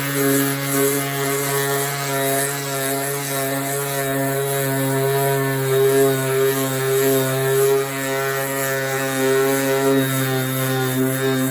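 Power sander running steadily at full speed with coarse 80-grit paper, taking peeling clear coat off a Corvette body panel. It is loud, with a steady motor whine.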